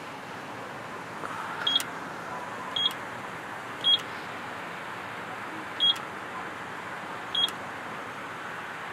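Car wash pay station keypad beeping as a wash code is keyed in: five short, high beeps at uneven intervals over steady background noise.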